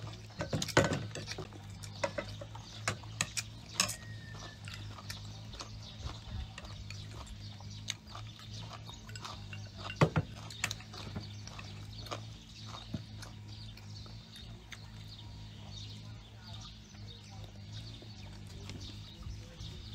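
A person chewing food, with chopsticks clicking against a bowl now and then, the loudest clicks about a second in and about ten seconds in. A steady low hum runs underneath.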